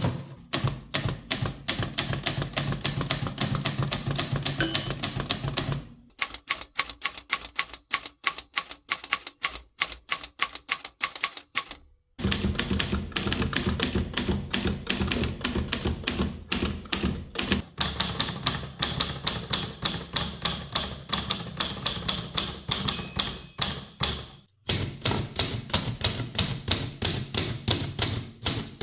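Typewriter type bars striking the platen in fast, uneven runs of keystrokes, several a second. The sound changes abruptly about six, twelve and twenty-four seconds in as one machine gives way to another.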